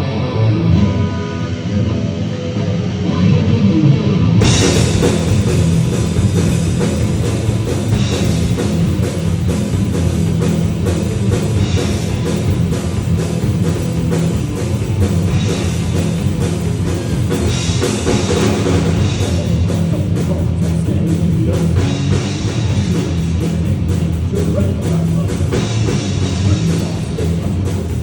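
Live heavy rock band playing an instrumental passage: electric guitar alone at first, then drums with crashing cymbals and the full band come in together about four seconds in and drive on steadily.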